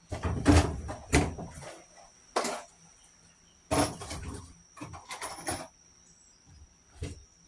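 Irregular knocks and thuds, about half a dozen spread over several seconds, from work on wooden door-frame lumber, with a faint steady high whine underneath.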